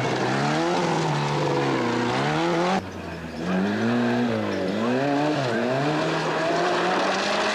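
Rally car engines revving hard through a gravel corner, the pitch rising and falling with throttle and gear changes. An abrupt cut comes about three seconds in, then a second car's engine, held at a steady high pitch near the end.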